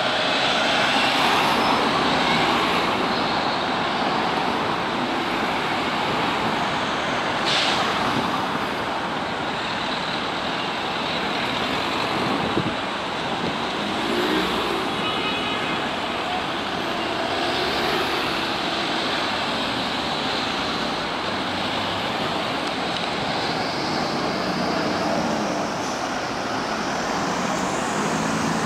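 Steady city street traffic: cars, vans and buses driving past.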